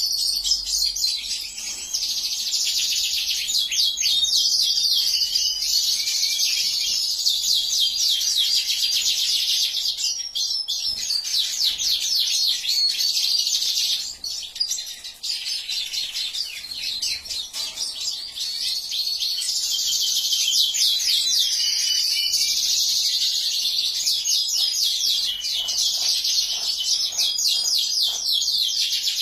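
Siskins and goldfinches singing together: a dense, continuous high-pitched twittering of rapid trills and chirps, thinning briefly twice.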